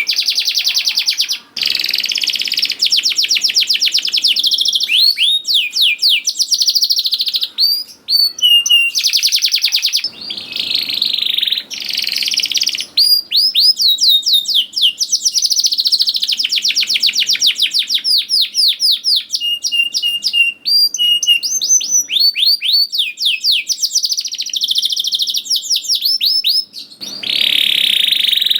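Domestic canary singing a long, loud song of rapid trills: fast runs of repeated down-slurred whistle notes alternating with buzzy rolls and short 'cuit cuit' chips.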